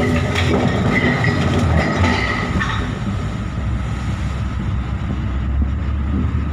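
Steel hull of the ferry Raja Basa I grinding and crunching against a dock fender as it rams and damages it: scraping, squealing and sharp cracks over a deep rumble, easing off after about three seconds.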